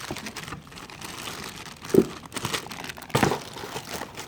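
Packaging crinkling and rustling as an item is handled, with two louder knocks about two and three seconds in.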